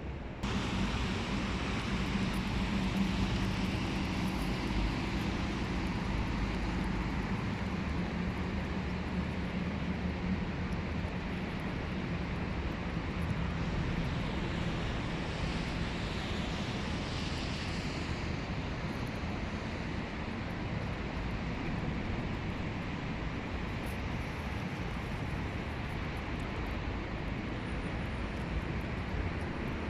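A steady low mechanical drone with a broad hiss over it, easing off a little after about half the time.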